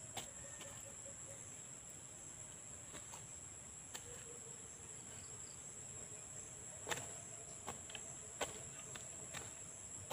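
Steady high-pitched insect drone, with scattered short knocks of hoe blades chopping into soil while weeding. The loudest knocks come about seven and eight and a half seconds in.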